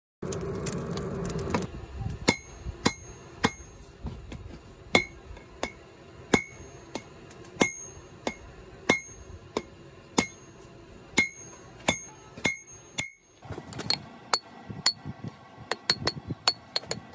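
Hand hammer striking hot wrought iron on an anvil: a steady run of blows about every half second, each ringing with a clear metallic tone. After a short break comes a quicker run of blows that ring higher.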